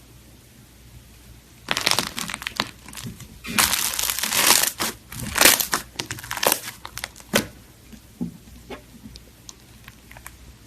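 Slime being squeezed and pressed by hand, giving a dense run of crackling and popping clicks from about two seconds in to past seven seconds, then a few scattered soft clicks.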